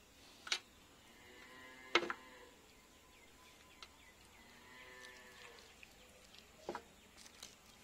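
A cow mooing faintly, two long calls a few seconds apart, while a few short sharp knocks sound near the start, in the middle and near the end.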